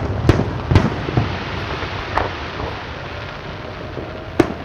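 Fireworks display: aerial shells bursting with sharp booms, several in the first second and another about two seconds in, with rumbling echoes between them and a fresh bang near the end.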